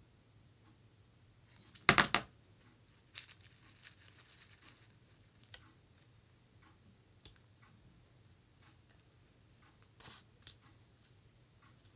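Crisp rustling and tearing of dried preserved rose petals being picked apart and handled, with a short louder knock about two seconds in, a longer rustle about three to five seconds in, and scattered light taps and ticks after.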